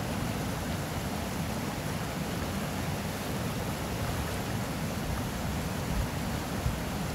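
Steady rushing of a small mountain river's flowing water.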